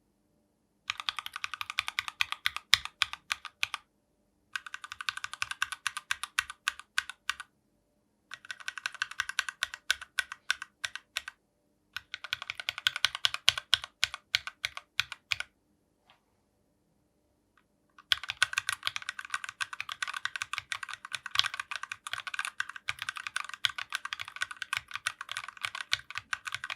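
Mechanical keyboard with stock, factory-lubed Gateron Keyfirst Cream switches, brass plate and PBT keycaps being typed on fast, in runs of about three seconds with short pauses between, the last run much longer.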